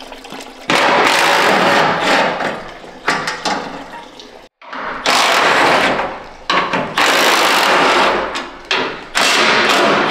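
Cordless power driver run in repeated bursts of a second or two with short pauses, spinning out bolts on a truck's radiator support.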